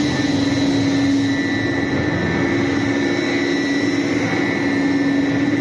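15 t/h biomass-fired steam boiler plant running: a steady, loud machinery roar with a constant low hum and a high whine over it.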